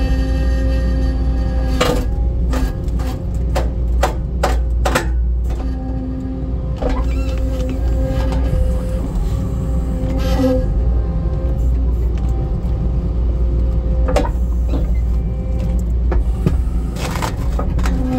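Skid steer engine running steadily under load, with a hydraulic whine that comes and goes as the homemade splitter's cylinder is worked. A run of sharp knocks and cracks comes about two to five seconds in, with a few more later and a cluster near the end.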